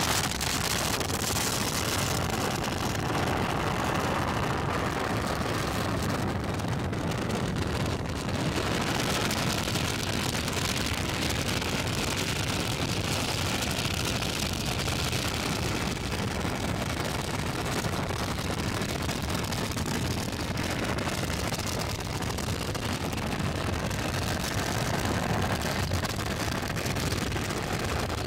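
Bajaj Pulsar 150 single-cylinder motorcycle cruising steadily at about 75 km/h: an unbroken rush of wind and engine noise with no changes in pace.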